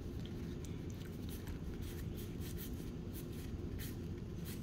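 Faint rustling and light ticks of Pokémon trading cards being handled, over a steady low background hum.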